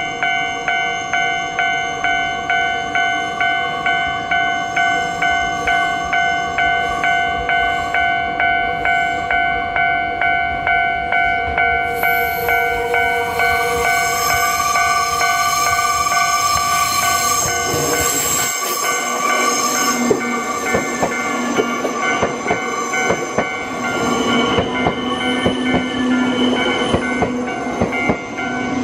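Level-crossing warning bell ringing in steady, regular strokes. From about twelve seconds in, a Nankai limited express train approaches and runs close past under the bell, its wheels clacking over the rail joints.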